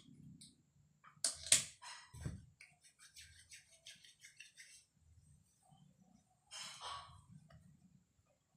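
Hands massaging a person's back: skin-on-skin strokes with two sharp slap-like sounds about a second in, then a run of quick light taps, and a rubbing swish near the end.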